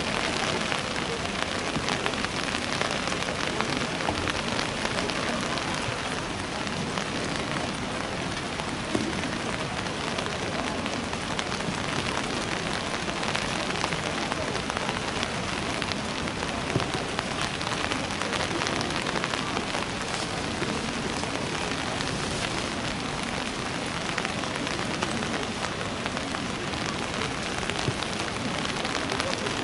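Steady rain falling, a continuous hiss with a fine patter of drops.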